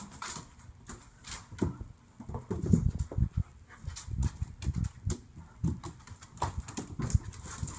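An adult Alaskan malamute and a malamute puppy play-wrestling on a tile floor: irregular scuffling thumps and claws clicking on the tiles.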